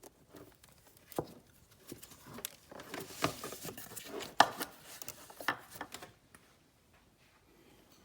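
Hand-handling noises in a car's engine bay: irregular clicks, knocks and rustles of plastic parts and wiring being worked by hand, with the sharpest knock about four and a half seconds in.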